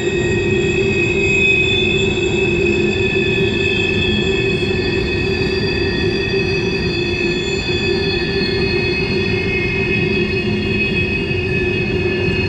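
Empty coal hopper cars rolling around a sharp railway curve, their wheel flanges squealing in several held high tones over a steady low rumble of wheels on rail.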